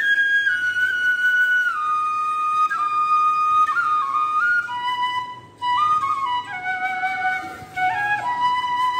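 Background music: a solo flute melody of held notes stepping up and down, with a short break about five and a half seconds in.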